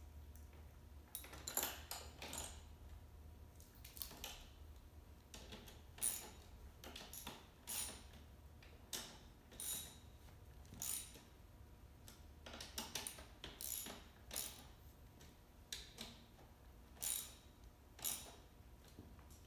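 Irregular sharp metallic clicks and taps, about one a second with a few quick clusters, from hand tools working at the handlebar of a small 1000 W electric ATV during assembly. A faint steady low hum runs underneath.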